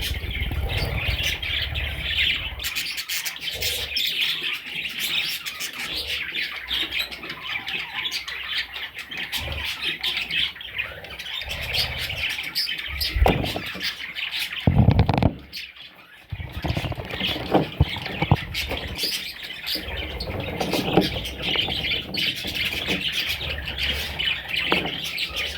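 A flock of budgerigars chattering continuously, with chirps and squawks, briefly dropping away about halfway through.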